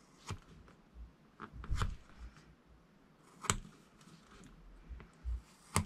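A few faint, separate clicks and scrapes as the excess end of shrunk heat-shrink tubing is cut off a small connector module with a craft knife.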